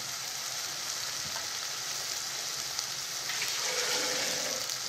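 Chicken pieces in a thick spiced masala sizzling in oil in a pan, a steady hiss; the meat has been cooking down and is nearly done, the stage before the gravy liquid goes in.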